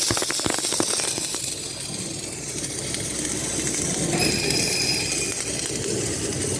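Submerged arc welding in progress: dense crackling at first, settling into a steady hiss with machine rumble and a faint high whine for a moment midway.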